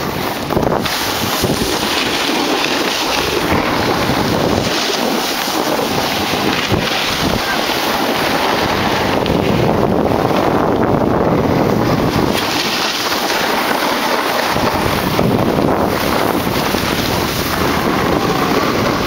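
Wind buffeting the microphone while moving downhill, a loud steady rush that gusts in and out, over the hiss of a snowboard sliding on packed snow.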